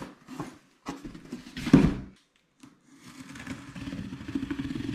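Folding knife blade slicing through packing tape on a cardboard box, a continuous rasping tear in the second half. It is preceded by light handling knocks and one louder knock on the box just under two seconds in.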